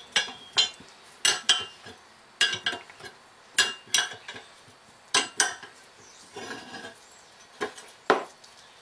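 Steel spanner clinking on the bolt of a spring compressor as it is wound back to release the drive spring of a Lucas inertia starter motor. The sharp metallic clinks come often two close together, about once a second, with a gap of over a second near the end.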